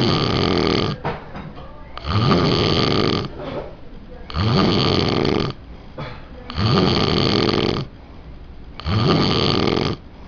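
A sleeping person snoring heavily after drinking a lot: five loud snores, about one every two seconds and each a little over a second long, with quieter breaths between them.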